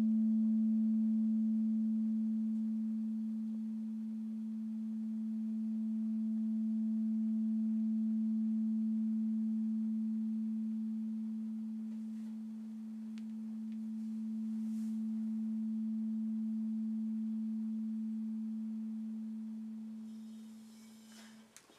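Frosted quartz crystal singing bowl tuned to A ringing on after being played: one pure, steady low tone with faint higher overtones, its level slowly swelling and dipping. It fades and stops near the end.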